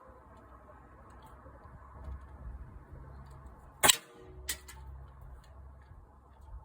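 A single sharp air gun shot about four seconds in, followed by a fainter click about half a second later, over a low steady hum.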